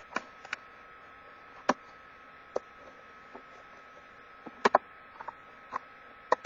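Scissors snipping through a cardboard box: short, sharp clicks at irregular intervals, two close together about two-thirds through, over a faint steady hum.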